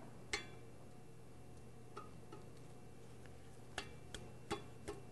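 Light metallic clicks and clinks of a steel collar and key being worked onto a vacuum pump's shaft in the pulley hub: one sharp click just after the start, a couple of soft ones midway, and a quick run of four or five near the end, over a low steady hum.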